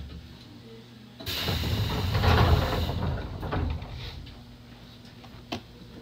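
Passenger doors of a Nankai 1000-series train opening at a station stop: a sudden rush of air and sliding panels about a second in that fades away over roughly three seconds. A single sharp click follows near the end.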